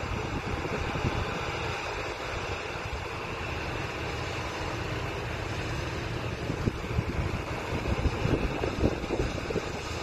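Wind buffeting the microphone over a steady low rumble of machinery, with the gusts growing stronger in the last few seconds.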